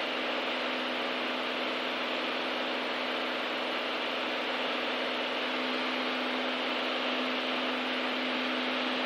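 Beechcraft A36 Bonanza's piston engine and propeller running steadily at full takeoff power in the climb, a constant hum over a rushing noise.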